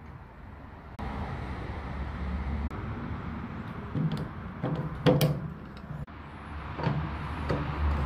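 Metal clinks and scrapes of locking pliers and a spanner on a wheelbarrow axle nut as it is tightened, over a steady low rumble. A few sharp clanks fall in the second half, the loudest about five seconds in.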